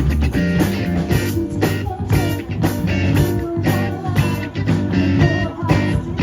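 Rock band playing live: electric guitar and bass over a steady drum beat.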